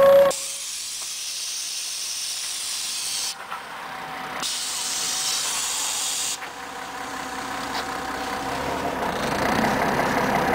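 Compressed air hissing from the pneumatic system of a Scania CN113CLL city bus standing at a stop: two hisses, about three and two seconds long, a second apart. A low running noise from the bus slowly grows louder over the last few seconds.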